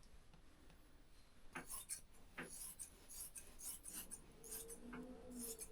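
Faint, scattered scraping and rubbing sounds of materials being handled, with a faint low hum for about a second near the end.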